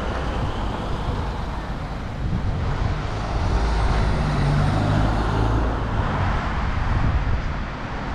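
City street traffic: vehicle engines and tyre noise on the road, swelling in the middle as a vehicle passes close, then easing off.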